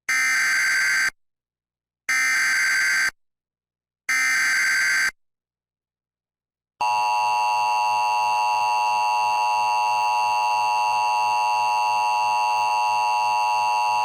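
Emergency Alert System SAME header: three one-second bursts of screeching digital data tones, a second apart, then the steady EAS attention tone starting about seven seconds in. Together they announce the start of a new severe thunderstorm warning.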